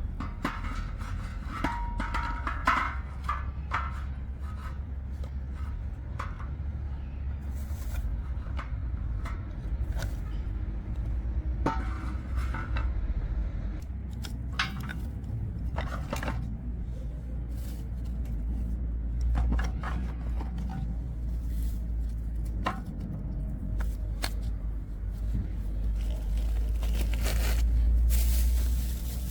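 Utensils and dishes being handled in food preparation: scattered clicks, knocks and scrapes over a steady low rumble.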